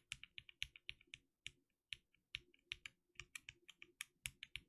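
Unlubed stock NovelKeys Cream linear switches typed on a mechanical keyboard: a quick, even run of keystroke clacks, about four to five a second, that thins out briefly about two seconds in.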